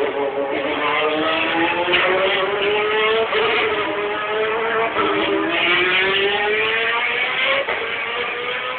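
GT3 race car engines accelerating on the circuit, the engine note climbing in pitch, dropping back about five seconds in, then climbing again.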